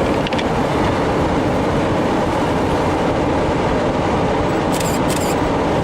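Steady low rumble of a vehicle being driven on a snowy road, with two brief high rattles about five seconds in.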